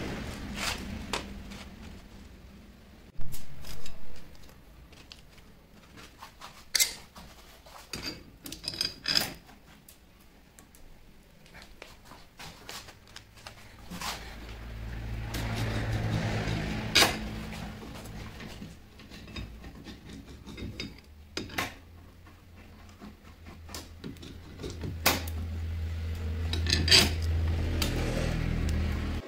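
Steel hex nuts, steel tubes and clamps being handled and set down on a steel work table: scattered metallic clinks and knocks, the loudest at about three to four seconds in and near the end. A low hum rises twice in the background.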